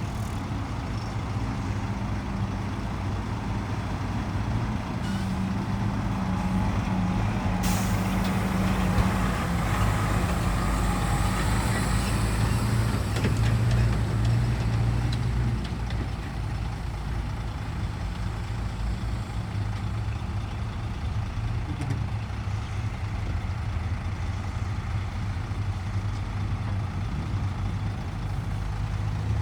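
Heavy diesel engine of earthmoving machinery running steadily, growing louder for a few seconds near the middle, with one brief sharp sound just before eight seconds in.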